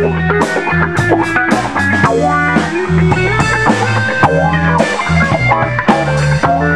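Live band playing a funk groove, a drum kit's snare and cymbals keeping a steady beat.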